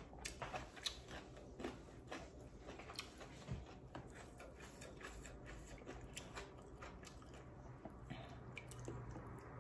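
Faint chewing and mouth sounds of someone eating noodle soup, with scattered sharp clicks, mostly in the first half.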